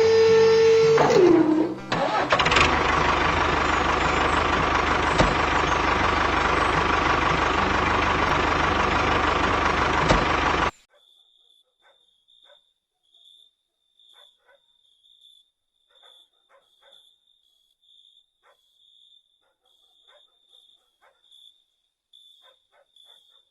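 An engine sound. A steady whine drops in pitch about a second in, then a loud, even running noise with a constant whine sets in. It cuts off abruptly about eleven seconds in, leaving only faint ticks.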